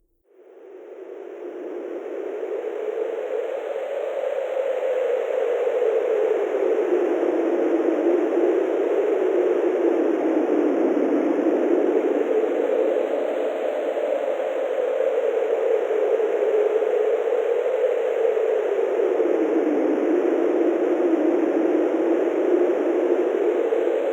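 Wind sound effect: a steady rushing wind noise that fades in from near silence over the first few seconds, its pitch slowly swelling and sinking in long waves.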